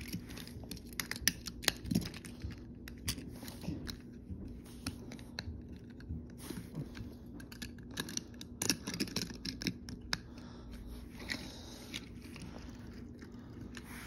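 Hands handling a toy truck and car: irregular small clicks, taps and rustles, busiest about nine seconds in, over a faint steady low hum.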